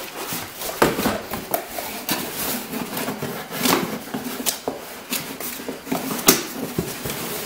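Cardboard boxes being handled: rustling and scraping of cardboard and plastic packaging, with many light knocks and taps as boxes are moved around inside a large cardboard carton.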